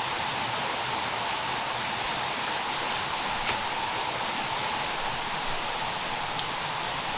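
Steady hiss of forest background noise, with a few faint light clicks as the bamboo eel trap is handled.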